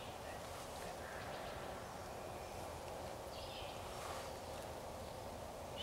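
Quiet hardwood-forest ambience: a steady low outdoor hiss with a few faint, brief bird chirps, one about a second in and a couple around three to four seconds in.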